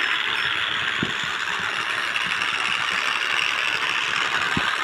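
Small battery-powered DC geared motor running steadily with a rattling whir of its gearbox as a toy vehicle drives along concrete, with a faint knock or two.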